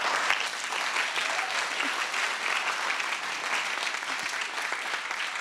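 Audience applauding: many hands clapping at a steady level, starting abruptly.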